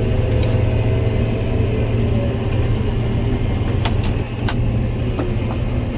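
Diesel engine of a John Deere 9500 combine running steadily with a low hum, and a couple of sharp clicks about two thirds of the way through.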